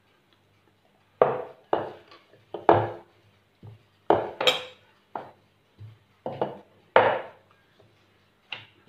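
Irregular knocks and clunks on a wooden worktop as dough and a wooden rolling pin are handled: about a dozen separate hits, each dying away quickly.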